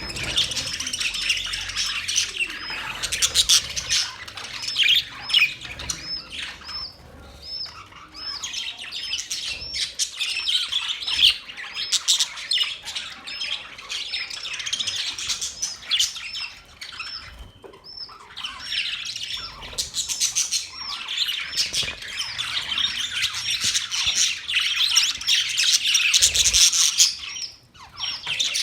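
Several budgerigars chattering and warbling together in a dense, continuous chirping. Through much of the middle one short high chirp repeats about twice a second, and the chatter briefly drops away near the end.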